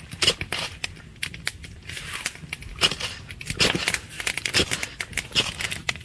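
Ferrocerium rod (fire steel) struck over and over with a scraper in a run of sharp, uneven scrapes, throwing sparks to light shredded birch-bark tinder.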